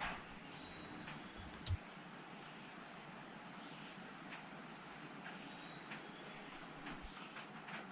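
A cricket chirping in a steady, high, evenly pulsed trill, with one short knock nearly two seconds in.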